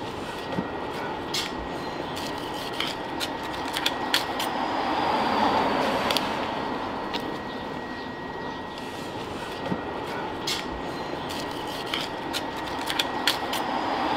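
Knife cutting into a tuna head on a cardboard-covered board: scattered sharp clicks and knocks of the blade against bone and board, over a steady background noise that swells around the middle.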